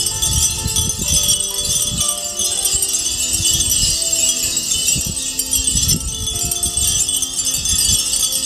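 Many Japanese fūrin wind chimes tinkling together in a dense, continuous shimmer, with an irregular low rumble beneath.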